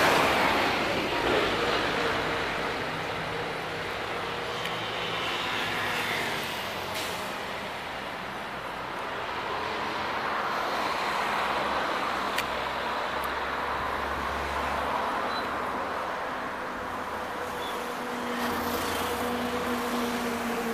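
Steady motor-vehicle noise: an engine running with a faint held tone under a general traffic hum.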